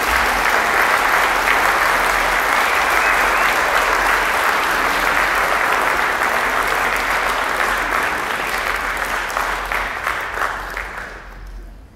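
Audience applauding, steady for most of the time and dying away over the last few seconds.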